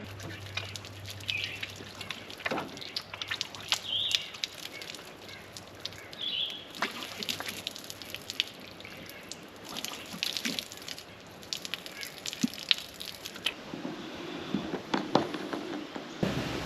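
Light clicks, taps and clinks of camp gear being handled for breakfast, with a little water dripping and trickling. A few short ringing notes stand out about a second in, at about four seconds, and near seven seconds.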